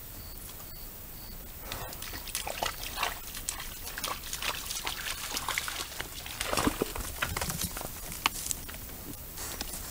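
Wild boar splashing through shallow pond water: irregular splashes and sloshing that begin about two seconds in, heaviest around the middle.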